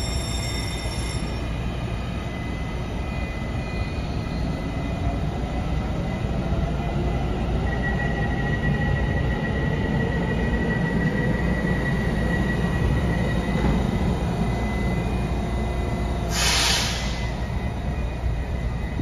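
Taiwan Railways EMU900 electric multiple unit pulling out of an underground platform: a steady rumble of the moving cars with the traction motors' whine climbing in pitch as it gathers speed. A short burst of hiss comes about three-quarters of the way through.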